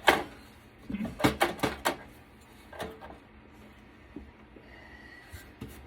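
Clicks and clatters of desktop computer parts being handled and knocked together during teardown: a sharp knock at the start, a quick run of about five clicks a second in, one more near three seconds, then quieter.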